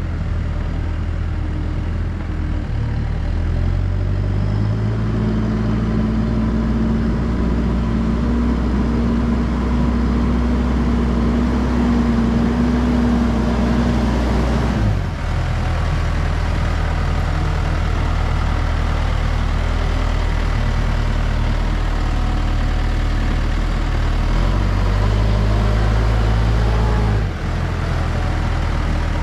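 JCB backhoe loader's diesel engine running steadily. Its note holds higher for several seconds, drops sharply about halfway through, and shifts again near the end.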